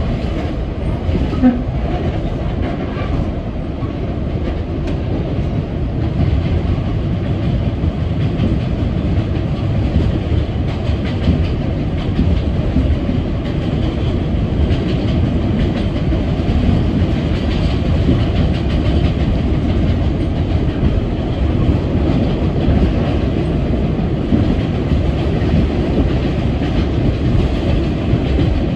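R62A subway car running between stations, heard from on board: steady rumble of steel wheels on rail. It gets slightly louder about six seconds in.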